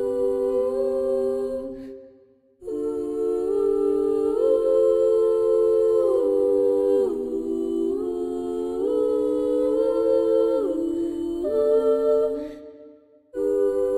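Gentle wordless music of slow sustained chords, several notes held together and shifting step by step, breaking off briefly about two seconds in and again near the end.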